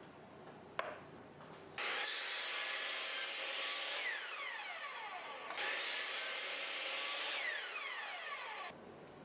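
A tool cutting or abrading wood in two long passes, each about three to four seconds, with a brief break between them.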